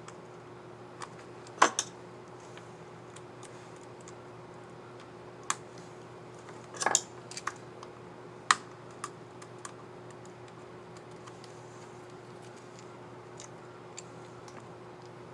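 Small sharp plastic clicks and snaps from a laptop keycap and its scissor mechanism being handled, fitted and pressed onto the HP 15-BA keyboard. The clicks come one at a time at irregular gaps, the loudest about one and a half seconds in and again about seven seconds in, over a faint steady hum.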